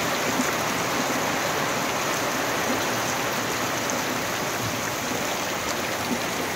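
Heavy rain falling onto shallow floodwater, a steady dense hiss with a few faint drip ticks.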